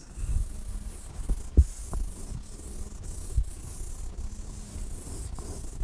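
A hand rubbing across the glass of an interactive touchscreen while erasing, with a few faint knocks. A steady hiss and a faint hum sit underneath.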